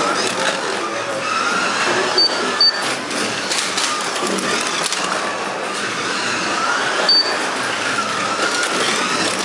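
1/24 Carrera Digital Ferrari P4 slot cars racing: electric motors whining, the pitch rising and falling with throttle, over a steady rattle of the cars on the plastic track. Three short high beeps cut through, two close together about two seconds in and one later.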